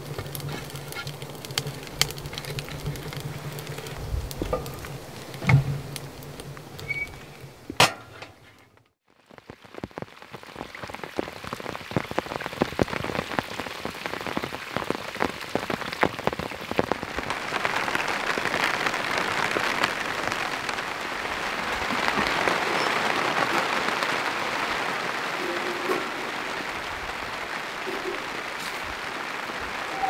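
Rain falling in dense pattering drops. After a short break about a third of the way in it thickens into a steady, heavier rush.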